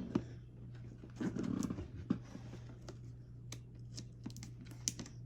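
Scattered light clicks and taps as a boxed model kit is handled and opened, with a brief low murmur about a second in.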